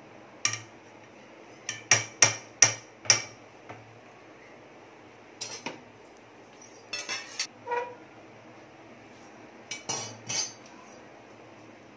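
A stainless-steel perforated ladle and strainer knocking against the rim of a steel pot as cooked rice is tipped and shaken off into it, making sharp ringing metal clinks. A quick run of about five comes about two seconds in, then scattered pairs and triplets follow.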